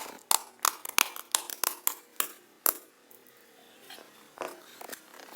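Slime being squeezed and worked by hand, giving a quick run of sharp, click-like pops in the first three seconds, then a few fainter ones near the end.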